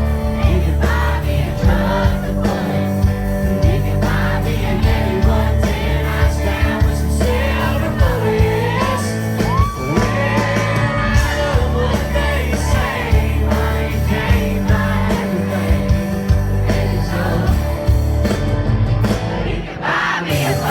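Loud country-pop song with a heavy bass line and sung vocals, played throughout.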